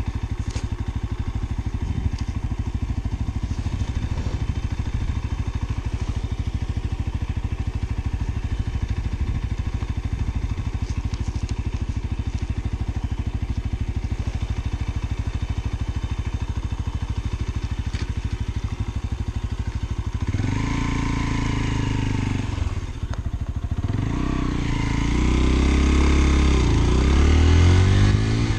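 Lexmoto Assault 125's single-cylinder 125cc four-stroke engine idling steadily just after start-up. About twenty seconds in it is revved and the bike pulls away, dropping briefly and then rising in pitch as it accelerates.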